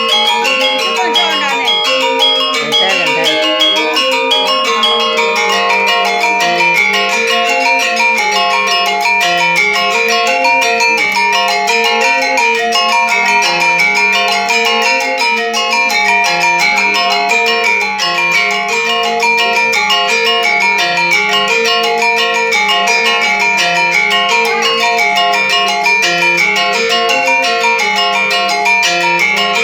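Music of tuned mallet percussion, fast steady strikes at many pitches over a slower repeating lower melody.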